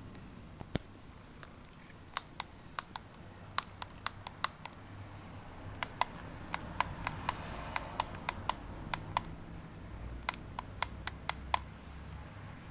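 Controls of a Westclox Model 1818 digital alarm clock clicking as they are pressed, in quick irregular runs of sharp clicks.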